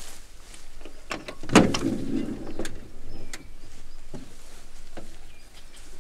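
An old car's door being opened: a few latch clicks, then one loud clunk as the door comes open, followed by lighter knocks as someone climbs in.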